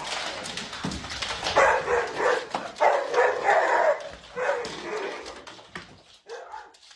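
A dog barking repeatedly, in several loud bursts.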